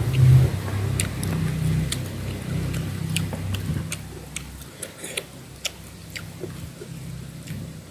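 Eating sounds: short, irregular mouth clicks and smacks of chewing. Under them a low rumble fades away about four seconds in.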